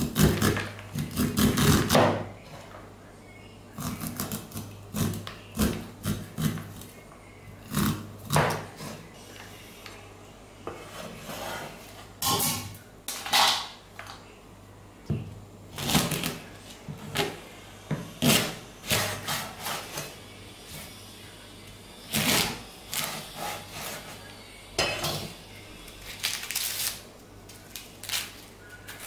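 A steel cleaver knocks and scrapes against a wooden chopping board and a corn cob in irregular strokes as kernels are cut off and pushed across the board. Near the end come the softer rustles of corn husks being peeled.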